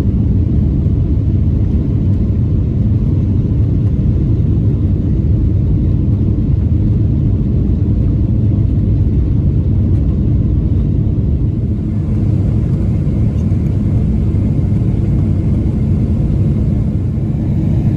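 Boeing 777-200ER jet engines and airflow heard inside the passenger cabin: a loud, steady low rumble, easing slightly for a moment partway through.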